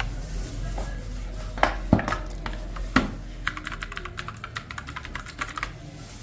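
Typing on an EvoFox Katana X2 FS mechanical keyboard with clicky blue switches. A few separate key presses come first, then a fast run of clicks from about three and a half seconds in.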